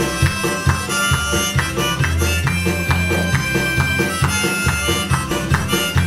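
Blues instrumental played live: a harmonica carries the melody in held, wailing notes over a strummed acoustic guitar and a keyboard playing a steady low bass line.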